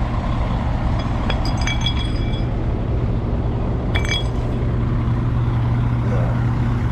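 Western Star semi-truck's diesel engine running with a steady low hum, with two short bursts of metallic clinking, about a second and a half in and again about four seconds in.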